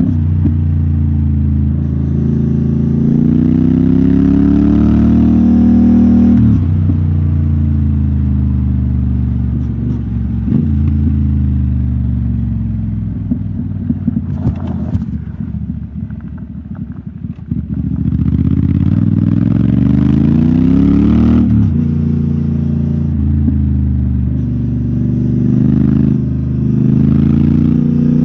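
Motorcycle engine running under load on a rough dirt road, revving up in a rising pitch and dropping sharply at gear changes about six and a half and twenty-one seconds in. In between, around the middle, the throttle eases and the engine drops lower and quieter, with a run of short knocks and rattles.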